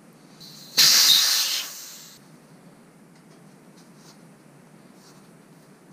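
Air hissing out of a bicycle tire's valve as the tire is let down. The hiss starts softly, comes on loud just under a second in, and fades away over about a second.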